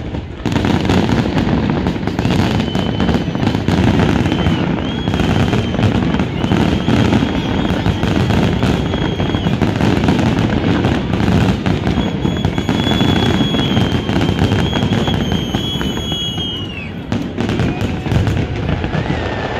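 Grand-finale fireworks barrage: many shells bursting and crackling at once in a continuous, loud roll of booms. Long steady high whistles sound over the bursts from a few seconds in until near the end, where they fall off in pitch.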